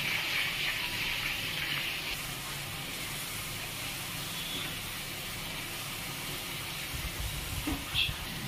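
Potato slices sizzling as they deep-fry in hot oil, a steady hiss that is strongest for the first two seconds and then settles, with a light tap near the end.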